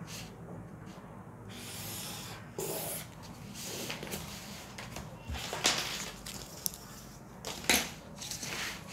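Handling a plastic ruler and pen on a sheet of pattern paper: soft paper rustles and scrapes as the ruler is slid and lines are drawn, with two short sharp clicks in the second half as the ruler or pen is set down.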